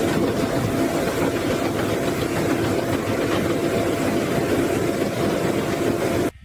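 A large wood-processing machine running steadily, its engine and mechanical din continuous, with a faint steady hum in it; the sound cuts off abruptly near the end.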